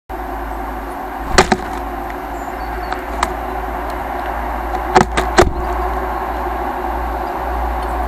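Sharp clicks and taps of a great tit's feet and beak on a plastic bird feeder right by the microphone as it lands and picks at seeds: a pair of clicks, a single one, then three in quick succession about five seconds in, over a steady low rumble.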